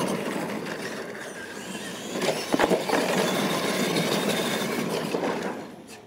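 Electric radio-controlled monster trucks running on a dirt track, with a few sharp knocks about two and a half seconds in; the sound falls away near the end.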